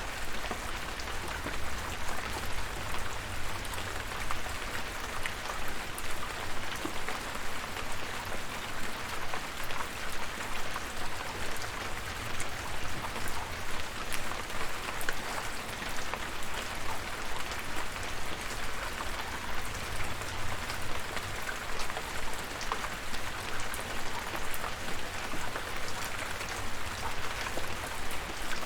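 Steady rain: an even hiss with scattered sharp ticks of single drops and a low rumble underneath.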